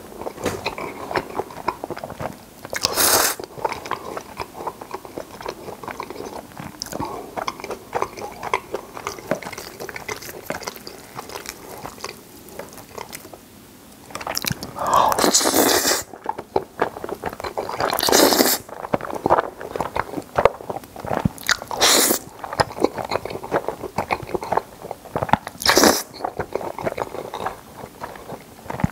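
Close-miked chewing of carbonara spaghetti, a steady run of small wet mouth clicks, broken by loud slurps of noodles about five times, the longest just past the middle.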